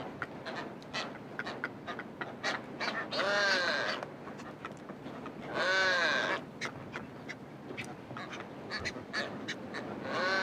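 Brown boobies calling: three drawn-out honking calls, each under a second long and rising then falling in pitch. The first two come about 3 and 6 seconds in, the last right at the end, with scattered short clicks between them.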